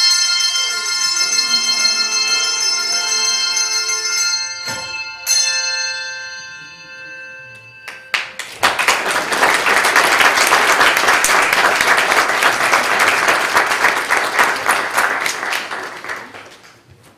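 Handbell choir's closing chord ringing and slowly dying away, with two short knocks about five seconds in. Then the congregation applauds for about eight seconds.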